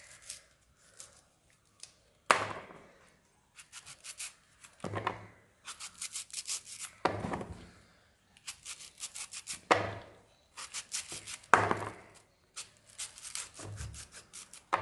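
Knife carving chunks off a firm raw green mango: runs of quick, crisp cutting strokes. About every two to three seconds there is a louder knock as a cut piece drops into a plastic bowl, six in all.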